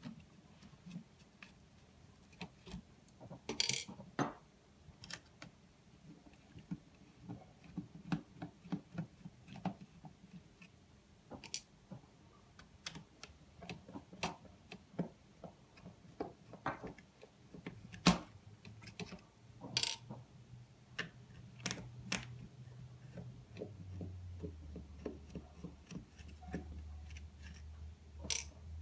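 Irregular small clicks and knocks of a screwdriver and fingers working on a plastic alarm-panel case and its circuit board while the screws are taken out.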